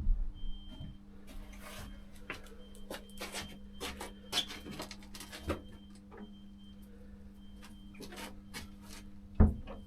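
Footsteps crunching and scraping on debris, with a loud thump near the end. Under them a steady low electrical hum runs and a faint high electronic beep repeats about once a second.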